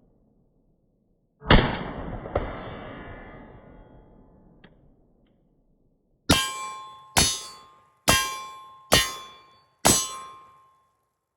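Shots from a Czechoslovak Vz.52/57 semi-automatic rifle. One shot about a second and a half in has a long echo dying away over a few seconds. Five more sharp cracks follow in a quick string just under a second apart, each leaving a short metallic ring.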